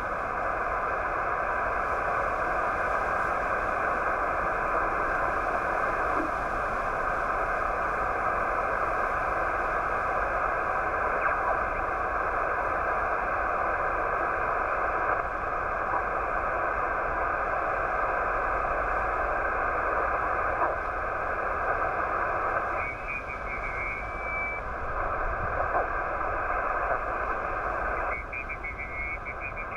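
Steady shortwave receiver static from a Yaesu FT-891's speaker: an empty frequency with no voice on it, cut off above and below the way a single-sideband receiver limits it. A faint, brief whistle rises out of the hiss about two-thirds of the way through.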